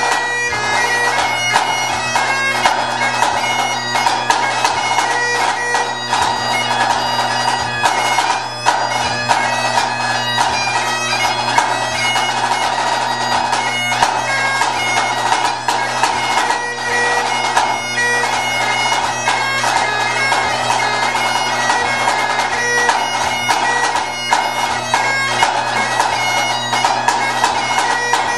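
Highland bagpipes playing a tune over steady drones, with a pipe band snare drum playing a dense run of strokes and rolls alongside.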